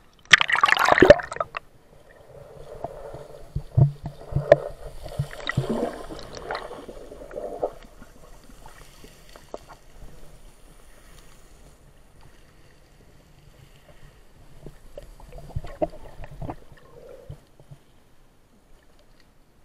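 Sea water splashing over an action camera's waterproof housing as it goes under the surface, a brief loud burst about a second in. Then muffled underwater sound through the housing: scattered knocks and water noise, quieter in the second half.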